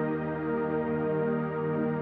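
Ambient background music of long, held tones, steady throughout, with no beat.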